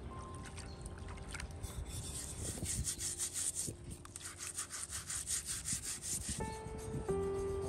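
Metal scouring pad scrubbed back and forth over the scorched hide of a bull's leg in a basin of water: quick, even rasping strokes. Background music comes back near the end.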